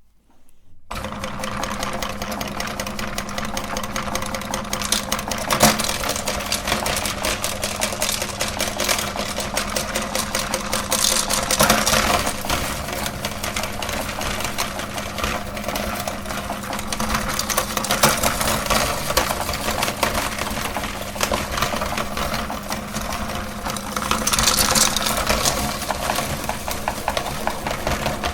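Electric meat grinder starting about a second in and running steadily with a motor hum, with constant rapid crackling and crunching as candy is ground through it.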